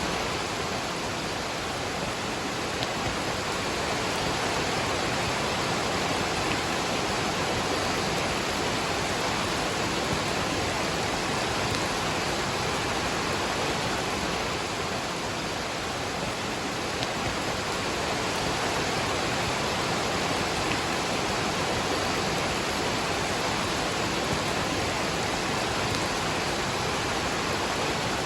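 Waterfall and rain: a steady, unbroken rush of falling water.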